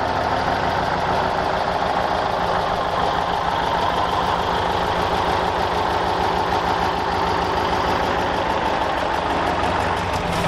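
Scania 141's V8 diesel engine idling steadily, with an even, fast pulse of firing strokes.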